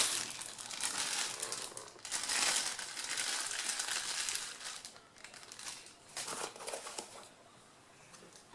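Packaging crinkling and rustling as it is handled, in irregular bursts for the first half and again briefly about six seconds in.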